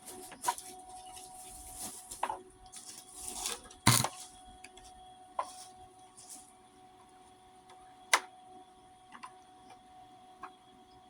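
Welding work on a steel mower deck: scattered metal clicks and knocks, the loudest about four and eight seconds in, with a couple of short hissing bursts in the first few seconds over a faint steady whine.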